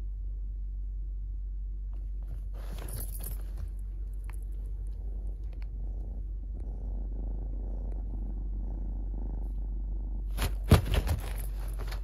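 Kitten purring steadily and continuously close to the microphone. Fabric rustling about three seconds in, and a louder burst of rustling and knocks near the end.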